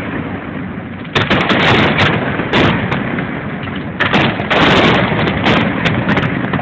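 Fireworks display: shells bursting with loud bangs, two big ones about a second in and about four seconds in, over a continuous din of crackling and rumbling echoes.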